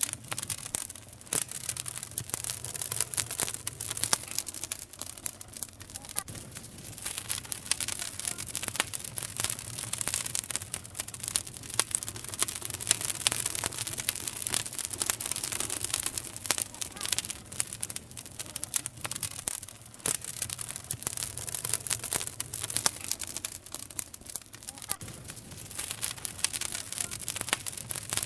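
Campfire burning: wood crackling steadily with frequent sharp pops over a hiss.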